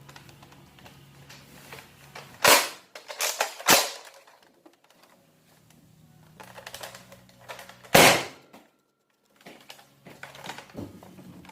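Nerf blaster firing with dart impacts: sharp snaps, a quick cluster of three about two and a half to four seconds in, then a single loudest snap about eight seconds in.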